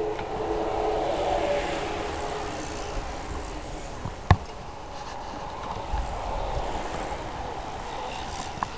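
Steady outdoor noise of road traffic, with a single sharp click about four seconds in.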